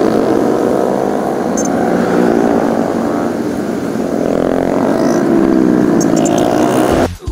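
A convoy of Yamaha Sniper 150 motorcycles, each a single-cylinder four-stroke, riding past one after another, their engines droning together and rising and falling in pitch as bikes come near and go by. The sound cuts off abruptly just before the end.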